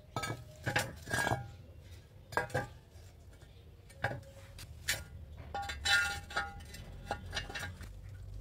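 A rusty square steel tube being handled and shifted on a concrete floor, with a rebar rod set into its drilled holes: irregular metal clinks and knocks, some ringing briefly.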